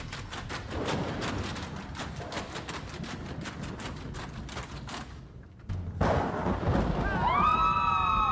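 A busy run of sharp percussive hits. After a brief drop about six seconds in, a louder passage of music begins, with sliding, wailing high tones over heavy bass.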